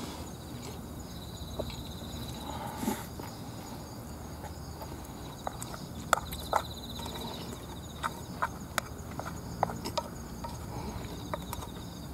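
Eating rice out of an opened tin can with wooden chopsticks: sharp clicks and taps of chopsticks on the can and mouth noises, sparse at first and coming every half second or so in the second half. A high insect buzz trills briefly a few times in the background.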